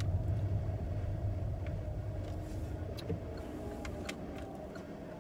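Low road and engine rumble heard inside a car's cabin, dying away gradually. A few faint ticks sound over it.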